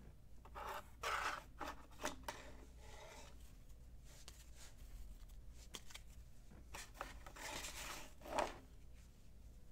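Trading cards handled by hand: faint, irregular sliding swishes and soft clicks as cards are slid past one another, the loudest swish about eight seconds in.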